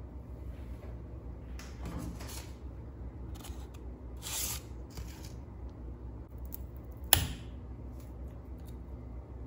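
Paper chopstick sleeve rustling as disposable wooden chopsticks are slid out, then a single sharp crack as the chopsticks are snapped apart about two-thirds of the way in.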